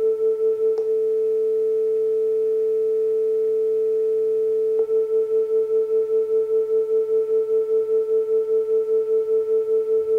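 Two smartphone speakers playing 440 Hz and 445 Hz sine tones together, the shared tone beating at about five pulses a second. About a second in, a click and one tone stops, leaving a single steady tone; just before the halfway point another click and the five-a-second beating returns.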